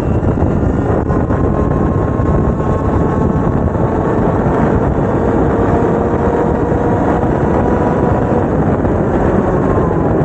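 Two-stroke racing kart engine running hard at race speed: a high buzzing note under a heavy rush of noise, its pitch drifting slowly and dropping near the end.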